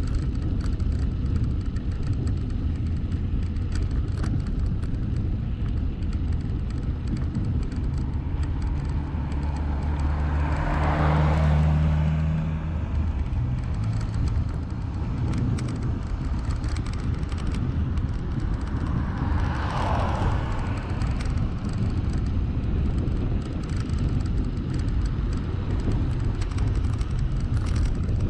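Two motor vehicles pass by over a steady low rumble of wind on the microphone. Each rises and then fades, the first about eleven seconds in with an audible engine note and the second about twenty seconds in.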